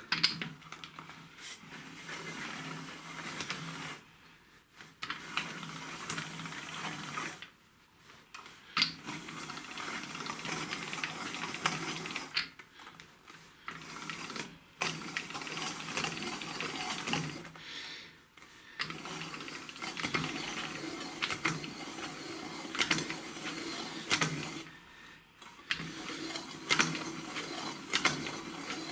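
Hand-cranked bead-rolling machine turning a galvanized steel pipe between its rollers to press an inward bead: a steady mechanical rattle of gears and rollers, with scattered clicks. It stops briefly several times and starts again.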